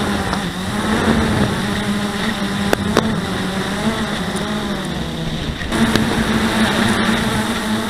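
Blade 350QX quadcopter's brushless motors and propellers buzzing in flight, heard close up from the onboard camera, the pitch wavering and stepping up about six seconds in. Two sharp ticks come close together about three seconds in.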